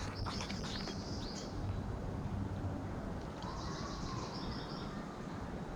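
Forest ambience: birds calling high and thin in two short spells, near the start and again in the middle, over a low steady rustle.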